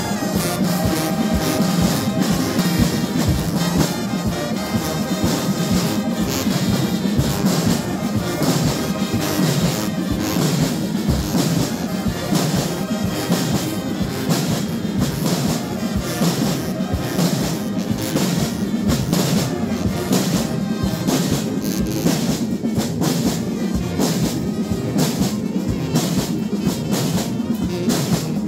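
Brass band music, with trumpets and trombones playing over steady percussion.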